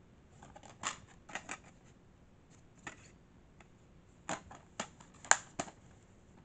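Plastic DVD case being handled, opened and shut: a string of sharp clicks and clacks, the loudest about five seconds in.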